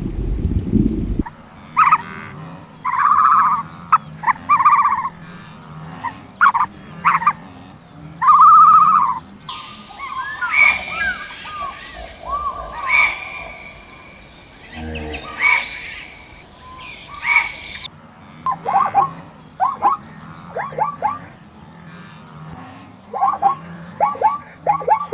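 Ducks quacking in spaced calls and quick runs of short quacks, with a stretch of higher chirping and peeping in the middle.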